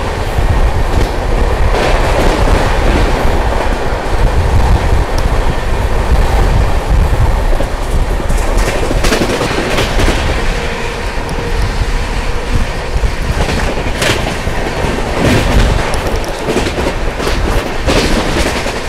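Express train running at speed: a loud steady rumble with wheels clattering over rail joints, and several sharper knocks in the second half.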